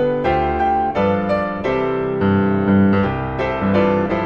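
Instrumental Christmas music on piano, notes and chords struck one after another and left to ring.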